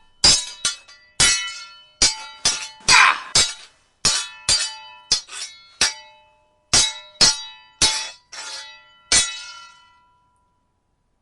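Steel sword blades clashing: about eighteen sharp, ringing strikes in a quick, irregular exchange, with a longer scraping slide of blade on blade about three seconds in. The strikes stop about nine seconds in.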